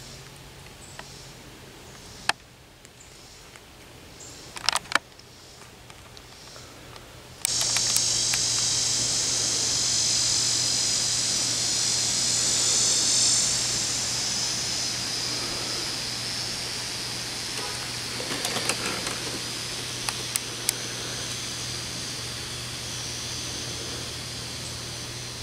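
Summer insect chorus, a steady high-pitched buzzing from the trees around the pond, starts abruptly about seven seconds in and slowly fades, over a faint low hum. Before it the scene is quiet, with a few sharp clicks.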